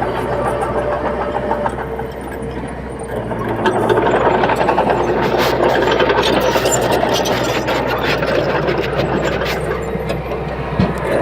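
Komatsu D30P bulldozer's diesel engine running and working, growing louder about four seconds in, with scattered rattles and clanks.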